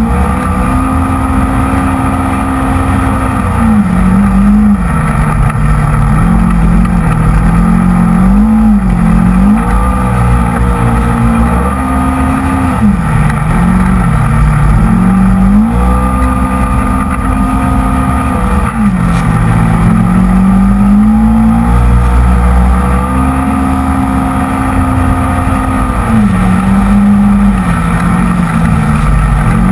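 Polaris RZR XP 900 side-by-side's twin-cylinder engine running hard on the dunes. It revs up to a high, held note, falls away as the throttle lifts, and climbs again, over and over, heard from inside the open cab.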